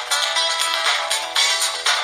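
A preloaded ringtone playing on an LG enV3 phone: a bright, busy electronic melody of quick repeating notes with almost no bass.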